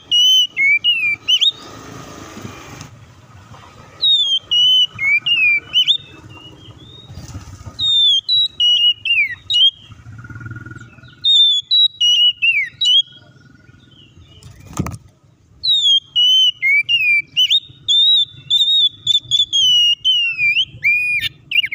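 Oriental magpie-robin singing loudly in phrases of rapid, varied whistles, slurs and trills, with short pauses between the phrases. A single sharp click sounds about fifteen seconds in.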